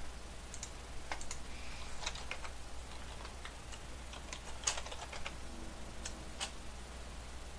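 Typing on a computer keyboard: irregular, scattered key clicks as a command is entered, with the sharpest click a little under five seconds in, over a low steady hum.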